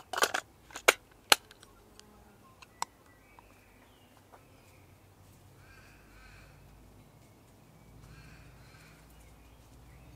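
Sharp plastic clicks and knocks as a Kodak Super 8 film cartridge is pushed and seated into the Keystone K-615 camera's film chamber, several in the first second and a half and one more nearly three seconds in. Faint bird calls follow twice later on.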